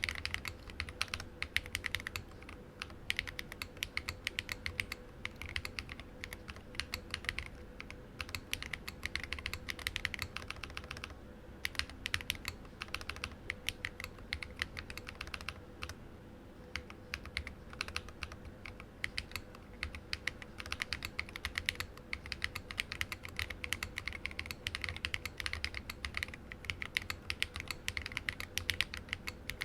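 Continuous typing on a Lily58 split mechanical keyboard with lubed Glorious Panda tactile switches, an acrylic plate and open acrylic case, and SA-profile PBT keycaps. It is a rapid stream of keystrokes, with brief pauses about 11 and 16 seconds in.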